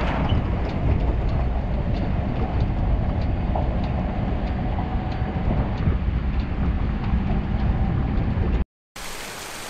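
Toyota Land Cruiser 76 driving on an unpaved gravel track: a steady low rumble of engine and tyres on gravel, with faint ticks of stones. It cuts off suddenly near the end, and the steady rush of a small waterfall follows.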